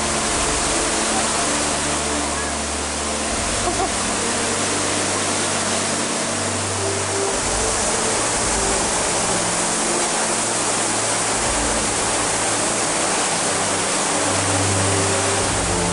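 The Saut du Doubs waterfall: a large volume of river water pouring over the fall and churning in the pool below, a dense, steady rushing. Music with slow, held low notes plays faintly underneath.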